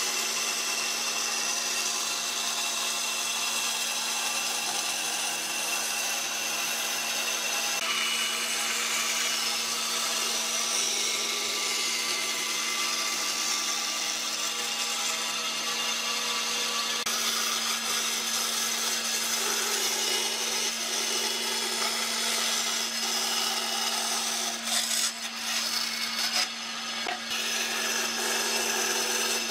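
Band saw running with a steady motor hum as its blade cuts a curve through a thick pine board. The cutting noise drops out briefly near the end.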